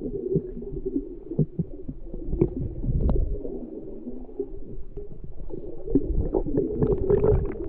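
Muffled water sloshing and gurgling with a low rumble and a few scattered knocks, lake water moving against something close to the microphone.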